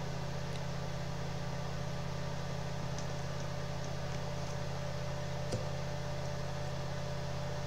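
Steady low electrical hum with a faint hiss, and one faint click about five and a half seconds in.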